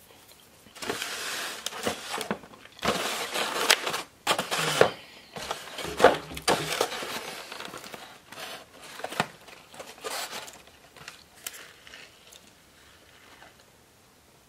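Crinkling and rustling of a paper napkin and a foam takeout clamshell being handled and shut, in a series of bursts with a few sharp clicks, dying away over the second half.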